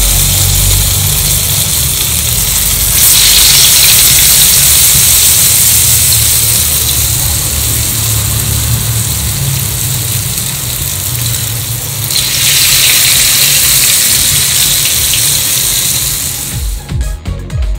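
Medu vadas deep-frying in hot oil in a cast iron kadai: a loud, steady sizzle that grows louder about 3 seconds in and again about 12 seconds in. The sizzle cuts off near the end as music begins.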